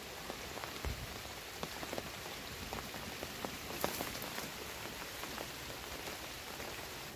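Steady patter of falling drops: a dense, even hiss with many small scattered ticks, and a soft thump about a second in.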